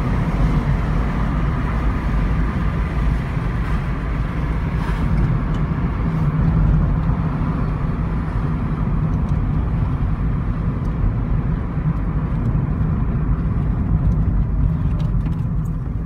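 Seat Ibiza 6L's freshly rebuilt 1.2 12V three-cylinder petrol engine (AZQ/BME) running under way, with tyre and road noise, heard from inside the cabin as a steady low drone.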